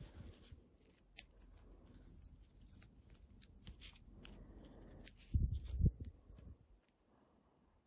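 Trading cards being handled and slid against each other, with faint papery ticks. A little past halfway come two soft, dull thuds about half a second apart as stacks of cards are set down on a rubber playmat.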